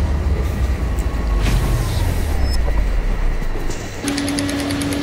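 Electric-vehicle hub motor running with a loud abnormal noise: a deep rumble at first, then from about four seconds in a steady hum with fast, even ticking. The mechanic traces the motor's trouble to a damaged pinion plate and rust from water getting inside.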